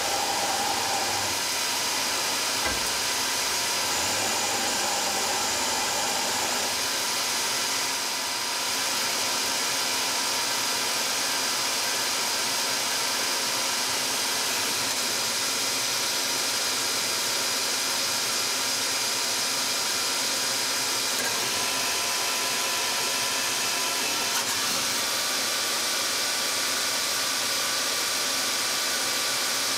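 Citizen Cincom M16-VIII Swiss-type CNC lathe running: a steady hiss with several steady whining tones. A couple of brief higher tones come and go in the first few seconds.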